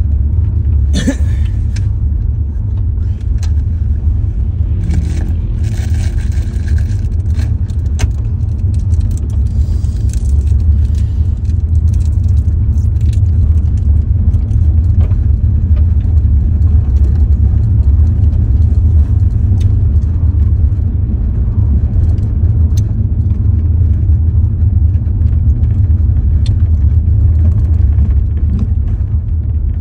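Steady low rumble of a car driving on a gravel road, heard inside the cabin, with scattered small clicks and rattles throughout.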